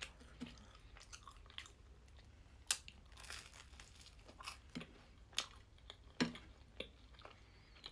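Someone biting and chewing jam-spread toast: scattered soft crunches and sharp mouth clicks, spaced about half a second to a second apart.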